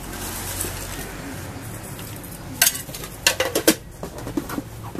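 Plastic food containers and a spoon handled on a steel counter while halo-halo toppings are added: a light scrape at first, then a run of sharp clicks and knocks in the second half.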